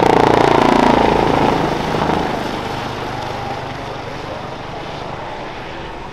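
Airbus Helicopters EC135 P2+ helicopter, with twin Pratt & Whitney Canada PW206B turboshaft engines, flying past overhead. Its whine falls in pitch during the first second as it passes, then the rotor and engine sound fades steadily as it flies away.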